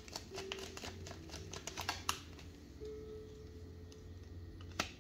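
Tarot cards being handled: a rapid run of light clicks for about the first two seconds, then a single click near the end.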